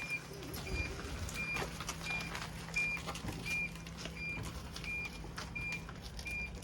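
A vehicle's electronic warning beeper sounds a short, high beep about three times every two seconds. Underneath is the steady low hum of a small vehicle that has just been started.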